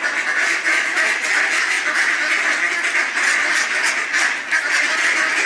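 A flock of mallards quacking, many calls overlapping in a steady chorus without a break.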